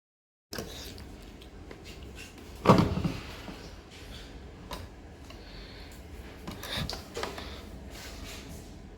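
Knocks and clicks of a Miele washing machine's plastic detergent drawer being handled, with one loud knock about three seconds in and smaller clicks later.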